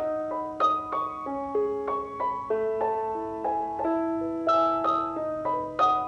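Background music: a piano playing a gentle melody over chords, one note after another at a moderate pace.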